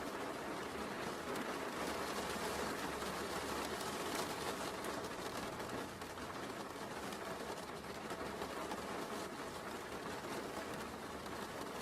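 Steady rain, an even hiss with a low rumble underneath, fine ticks of drops running through it.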